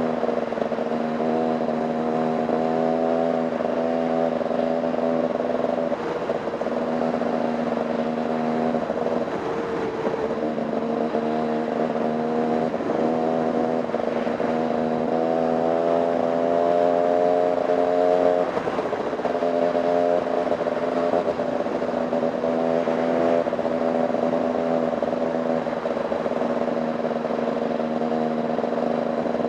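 Dirt bike engine running under steady throttle on a trail ride, its pitch holding for stretches and shifting a few times as the rider changes speed.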